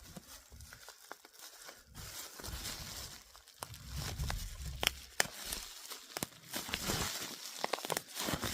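Packing paper being torn and crumpled by hand, with scattered sharp crackles and clicks.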